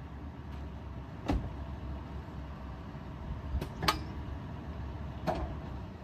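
Off-road SUV engine running low and steady as it crawls over an obstacle. A few sharp knocks come through, four in all, the loudest just before the midpoint.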